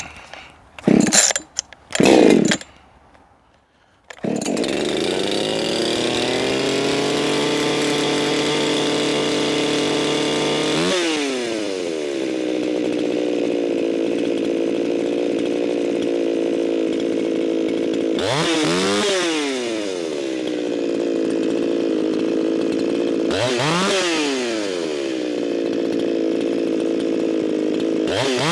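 Echo CS-4910 two-stroke chainsaw cold-started after a few short pulls of the starter cord, catching about four seconds in and settling to a steady run while it warms up, having not been run for a long time. The throttle is blipped a few times, the pitch jumping up and falling straight back.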